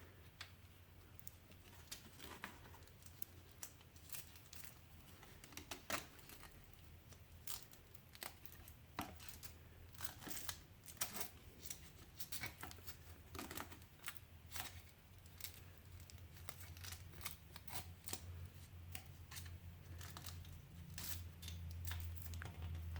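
Velcro hook-and-loop strap being worked around the bracket: short irregular crackling rips and handling clicks as the strap is pulled and pressed down.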